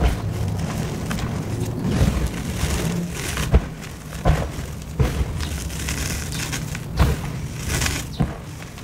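Hands raking, squeezing and sifting a deep pile of fine powder, sped up: a steady soft rustle of falling powder with sharp crunches every second or so.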